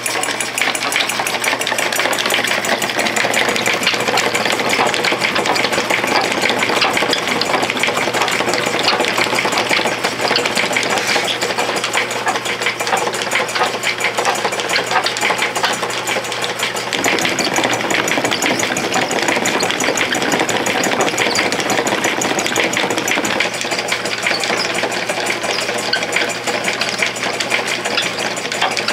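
Homemade plywood pad dye machine running, driven by an old electric motor through belts and pulleys: a steady, dense mechanical clatter of belts, pulleys, gears and rollers over a low hum, the hum dropping away for several seconds past the middle.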